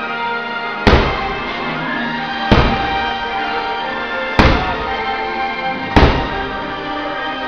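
Four aerial firework shells bursting with sharp booms, one every one and a half to two seconds, each trailing off, over the fireworks show's soundtrack music.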